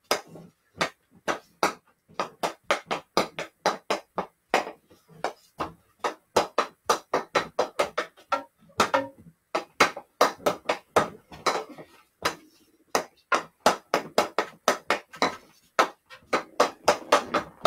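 Hockey stick blade tapping a stickhandling ball back and forth in a quick, steady rhythm, about three to four sharp knocks a second, with a couple of brief pauses.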